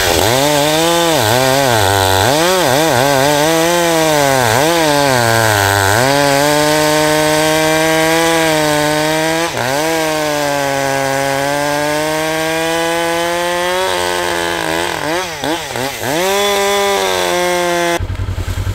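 Echo two-stroke chainsaw cutting through a log: the engine pitch dips and recovers again and again as the chain bites, holds at a steady high speed for several seconds, dips a few more times, then the engine stops shortly before the end.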